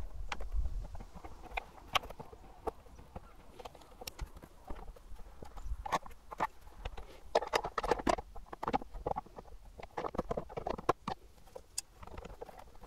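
Irregular small clicks and light knocks of hand tools and windscreen mounting hardware as pliers and a hex key work the screws on a motorcycle's plexiglass windscreen, busiest in the second half.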